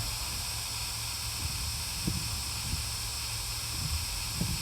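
Steady hiss with a low rumble underneath, and a few faint short low sounds about two seconds in and near the end.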